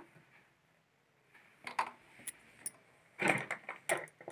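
A few short clinks and rustles of cloth and metal as fabric is handled and set under a sewing machine's presser foot, starting about a second in, with a busier patch near the end.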